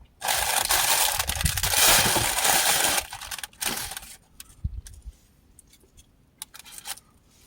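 Food wrapper crinkling and rustling loudly for about three seconds, followed by a few light clicks and rustles.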